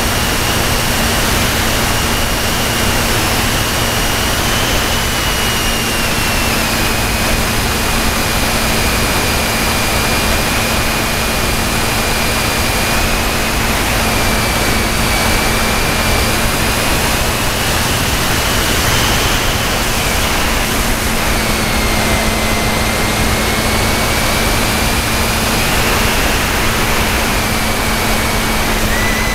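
Radio-control airplane heard from a camera on board in flight: its motor and propeller give a thin whine that drifts slowly up and down in pitch, under a loud, steady rush of wind over the camera.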